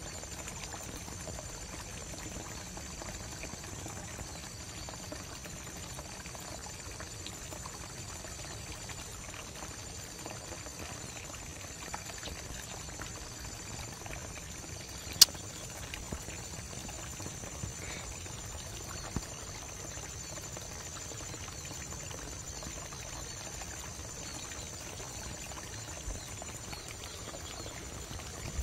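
Shallow stream water trickling steadily, with a steady high-pitched trill over it and one sharp click about halfway through.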